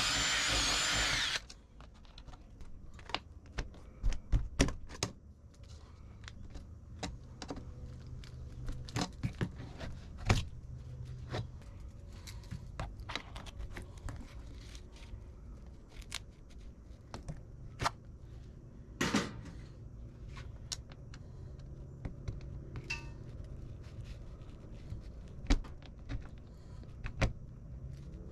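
A power drill drilling out a pop rivet, running with a high whine until it stops about a second and a half in. After that come scattered sharp clicks and knocks as the screen door strap is fitted and riveted with a hand rivet gun.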